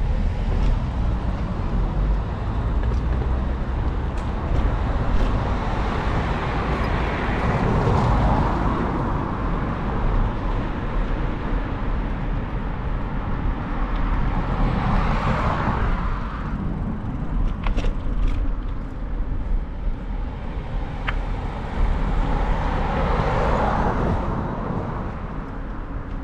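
City street traffic heard from a moving bicycle: three cars pass one after another, each swelling and fading, over a steady low rumble.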